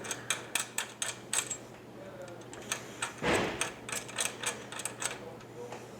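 Irregular light metallic clicks and taps of a 3/16 inch Allen wrench working a set screw on a motorcycle fork assembly, with one short scraping rush about three seconds in.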